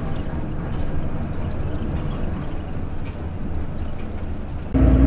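Steady low rumble of a bus in motion heard from inside the cabin, engine and road noise. Near the end it suddenly gets louder, with a steady hum coming in.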